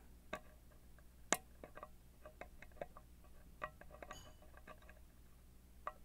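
Faint, irregular clicks of a steel lock pick working the wafers of a 14-wafer Illinois Duo wafer lock held under a wire tension tool, as the wafers are probed one by one; the sharpest click comes a little over a second in.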